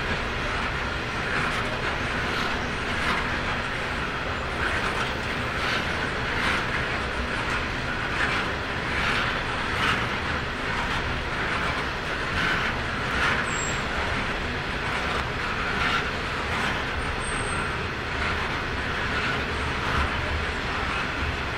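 Loaded coal hopper wagons of a long freight train rolling steadily past, with a steady rumble of wheels on rail. A light click from the wheels comes every second or so.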